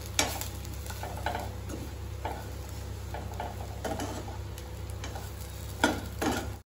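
A steel spoon stirring potato fry in a nonstick kadai: irregular scrapes and clicks of the spoon against the pan, about one every second, the loudest two near the end, over a steady low hum. The sound cuts off suddenly at the very end.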